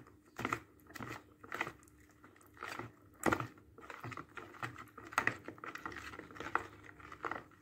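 A spoon stirring spices into thick yogurt in a bowl: irregular soft wet scrapes and clicks of the spoon against the bowl, the sharpest knock a little after three seconds in.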